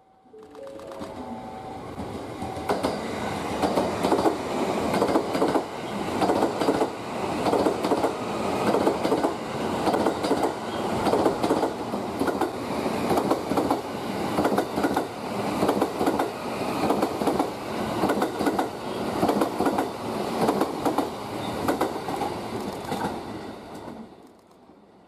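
JR West 323 series electric train running past close by, its wheels clattering over rail joints and points in a dense, irregular run of clacks. The sound builds over the first few seconds and drops away quickly near the end.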